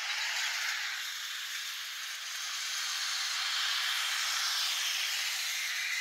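Road traffic going by: a steady hiss of car tyres on the road that swells in the second half and eases off near the end.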